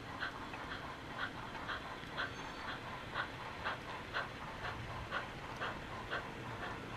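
Sound-equipped HO-scale steam locomotive chuffing steadily at about two chuffs a second through its small onboard speaker, over a low rumble of the train rolling on the track.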